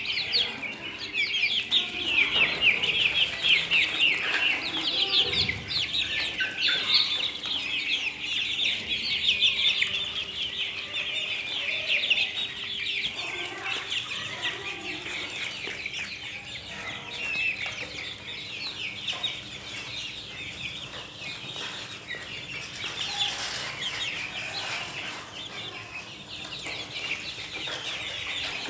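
A flock of young Australorp chickens calling continuously, with many short high-pitched peeps and cheeps overlapping. The calling is busiest in the first half.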